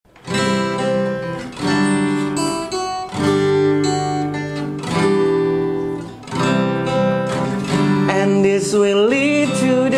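Acoustic guitar strummed, one chord ringing after another, changing about every second and a half.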